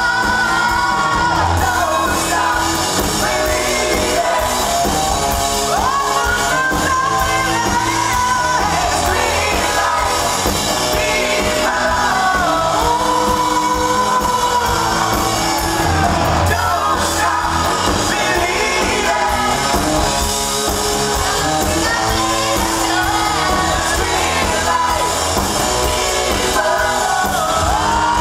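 Live pop-rock band playing a song with drums, electric guitars and bass, with a voice singing the melody over it, heard from the crowd.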